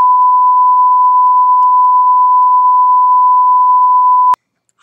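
A single loud, steady test-card beep tone, held without change and cut off suddenly near the end. It blanks out a profane tirade.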